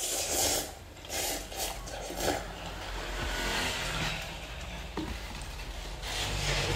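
Instant noodles slurped from a Pop Mie paper cup in several loud bursts over the first two seconds or so, then chewing and chopsticks working in the tilted cup over a steady low rumble.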